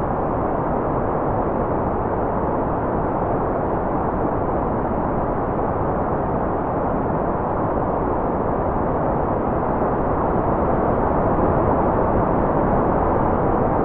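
Steady generated noise, sold as white noise, holding an even level with no tones, rhythm or breaks. It sounds dull and rumbly rather than hissy, with little in the high end.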